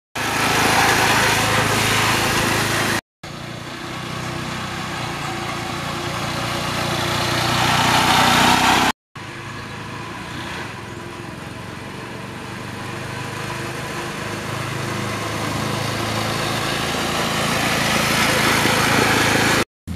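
Small garden tractor engine running as the tractor drives on the street, in short clips joined by abrupt cuts; within the longer clips it gets steadily louder as the tractor comes toward the microphone.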